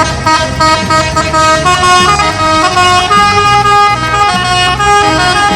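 Telolet bus horn: a set of musical air horns on an Indonesian intercity bus playing a quick, loud tune, several notes sounding together and changing pitch every fraction of a second. It stops abruptly near the end.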